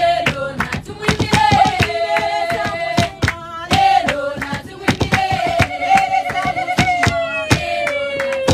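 A group of women singing a praise song together without instruments, with rhythmic hand clapping keeping the beat.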